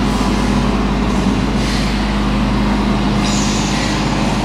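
Harsh electronic noise music: dense, steady noise over a low hum and a held low tone, with a band of high hiss that switches on about three seconds in.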